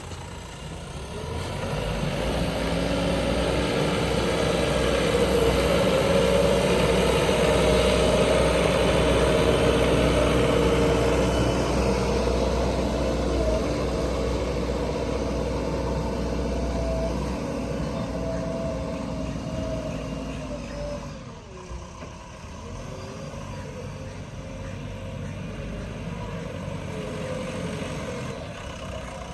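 JCB backhoe loader's diesel engine running under load while it works soil. It builds up over the first few seconds, holds steady, then eases back and drops lower about two-thirds of the way through.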